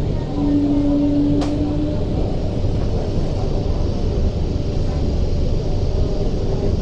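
Cabin noise of an MTR Tseung Kwan O Line train running between stations: a steady low rumble of wheels and traction equipment. A brief steady hum comes in the first couple of seconds, and a single sharp click comes about a second and a half in.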